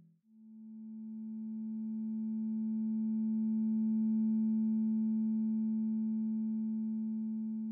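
Synthesized sustained tone from a Sonic Pi data sonification. It swells in slowly from silence, peaks about four seconds in, then slowly fades: one strong low note with fainter steady higher tones above it. Its overtone mix is mapped from the histogram of chloride levels in red wines.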